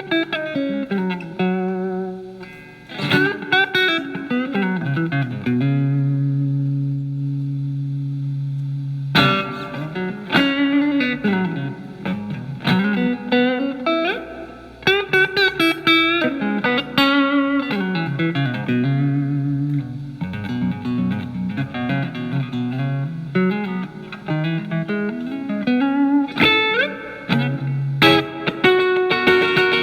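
Electric guitar, a Telecaster with alnico single-coil pickups, played through a Marshall MG15FX amp's crunch channel, cleaned up by turning down the guitar's volume, so the tone is only lightly driven. It plays single-note phrases with string bends and slides, with one chord let ring for about three seconds early on.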